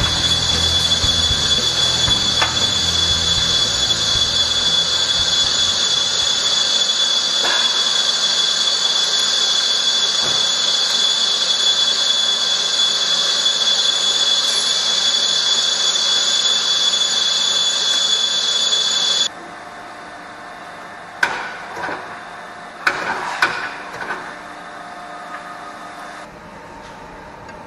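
Workshop machinery running with a steady high hiss and a fixed whine, which cuts off abruptly about two-thirds of the way through. A few sharp metal clanks follow as steel parallel blocks are set down on the boring mill's table.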